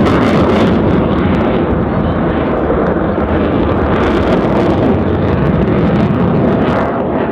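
A Royal Netherlands Air Force F-16's Pratt & Whitney F100 turbofan heard from the ground: loud, steady jet noise with a ragged crackle, easing off slightly near the end.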